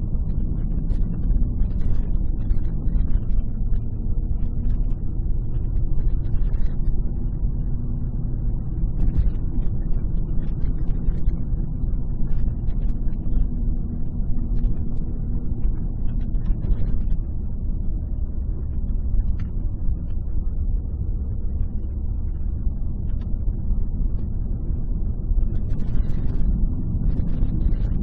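Steady low rumble of a car's engine and tyres on the road, heard from inside the cabin while driving, with a faint steady hum and scattered light clicks.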